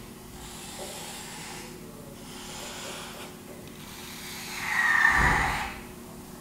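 A person breathing, with soft breaths in the first few seconds, then a loud breath out through the nose with a whistling tone about five seconds in.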